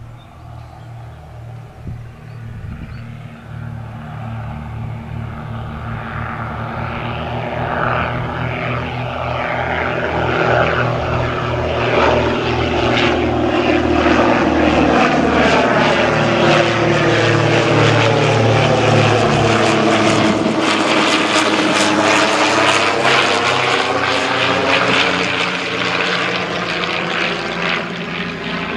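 De Havilland DH.89 Dragon Rapide's two inverted six-cylinder piston engines and propellers droning as the twin-engined biplane flies toward and then close overhead. The sound grows steadily louder over the first dozen seconds, holds at its loudest as it passes, and eases a little near the end as it moves away.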